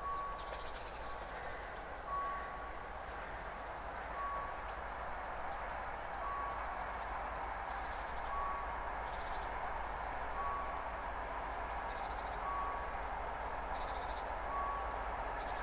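Railway level-crossing warning signal beeping, a steady tone of under a second repeating about every two seconds, as the crossing is closed for an approaching train. Underneath, the distant rumble of the TEP70 diesel locomotive slowly grows, with birds chirping.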